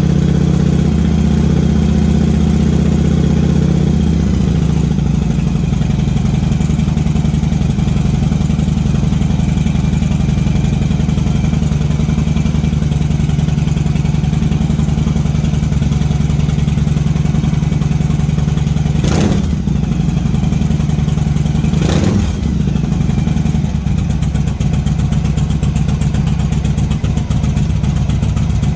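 Yamaha XVS1100 Dragstar's air-cooled V-twin engine running at idle, its note dropping slightly about four seconds in and then holding steady. Two brief sharp noises cut across it near the end, about three seconds apart.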